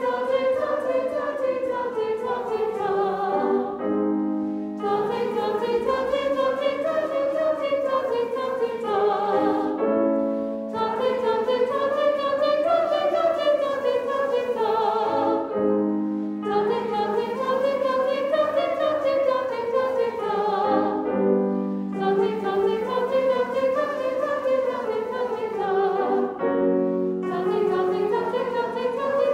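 Choir singing a warm-up vocalise with piano accompaniment: each sung phrase rises and falls over about four to five seconds, then a brief held piano chord leads into the next repetition, about every five and a half seconds.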